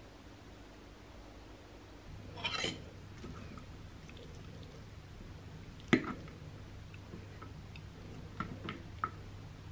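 Metal fork clinking and scraping on a ceramic plate during a meal. There is a short scrape about two and a half seconds in, one sharp clink about six seconds in that is the loudest sound, and a few lighter taps near the end.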